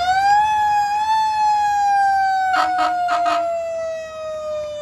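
Fire engine siren wailing: one long tone that climbs to a peak about a second in, then slowly coasts down in pitch, the way a mechanical siren winds down. A few short blasts sound over it a little past halfway.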